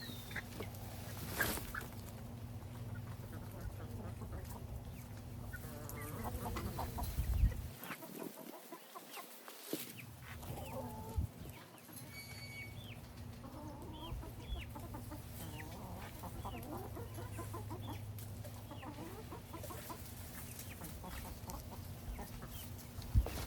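Chickens clucking in short, scattered calls, over a steady low rumble with an occasional thump.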